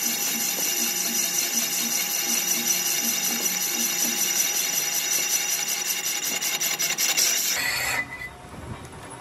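Lathe turning a cast-iron tractor brake drum, the cutting tool scraping across the spinning drum's face: a steady, loud rasping cut that pulses several times a second. The cutting noise drops off sharply about eight seconds in.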